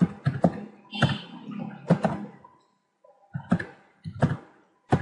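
Computer keyboard typing: separate dull, thumping keystrokes at an irregular pace, about a dozen of them, some in quick pairs.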